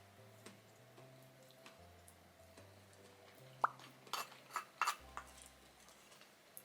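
A few sharp clinks of tableware, the first one ringing briefly, come in a cluster from a bit over three and a half seconds in to about five seconds. Soft background music with slow held notes plays throughout.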